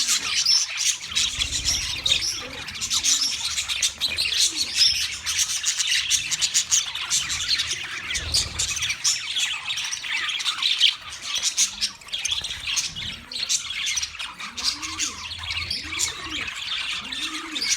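A flock of budgerigars chattering and chirping continuously, many short high warbles and squawks overlapping, with a few low arching calls underneath near the start and again toward the end.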